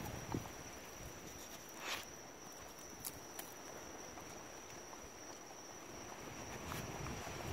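A dog chewing cane grass: a few scattered crunches and a short rustle of stalks about two seconds in, over a steady high cricket chirr.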